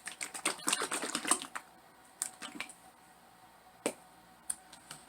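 Crunching and chewing on a battered fried chicken wing close to the microphone: a quick run of crisp crackles in the first second and a half, then a few scattered single crunches.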